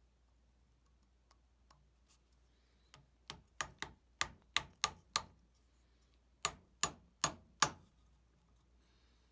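Light hammer taps driving a thin wooden wedge into the split top of a hickory handle seated in a steel hammer head: a run of about seven taps, a short pause, then four more.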